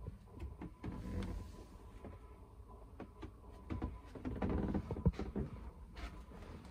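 Handheld camera being carried through a small boat cabin: a low handling rumble with scattered light knocks and clicks, the loudest thuds a little past the middle, over a faint steady high tone.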